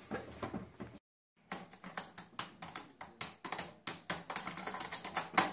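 Rapid typing on a laptop keyboard, a quick run of key clicks starting about a second in.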